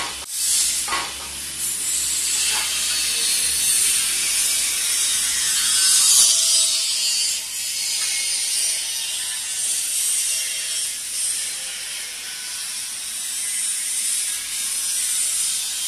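Continuous mechanical rattling and clicking of metal parts as the steel rollers and shaft fittings of a roller heat press machine frame are handled and fitted, over a steady high-pitched hiss.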